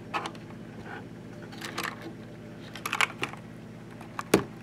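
Scattered plastic clicks and clacks from a 60% mechanical keyboard's keycaps being handled as the spacebar keycap is pulled off to be refitted backwards. The sharpest knock comes near the end, over a steady low hum.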